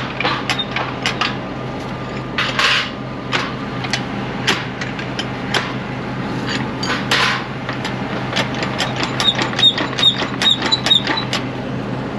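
Metal clicking and knocking from a grease gun being worked and tapped to get it to draw in grease. A quicker run of ringing metallic taps comes about two-thirds of the way through, over a steady low hum.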